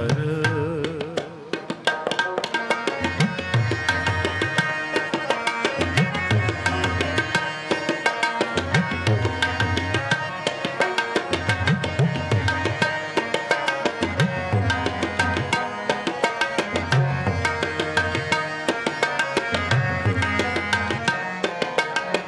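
Tabla and harmonium playing an instrumental passage of Gurbani kirtan. A sung line fades out in the first second; about two seconds in, the tabla takes up a fast, steady rhythm with repeated deep bass strokes over the held harmonium notes.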